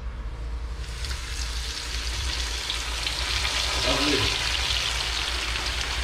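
Seasoned fish going into hot oil in a frying pan: the oil starts sizzling about a second in and keeps up a steady, loud sizzle as the fish fries.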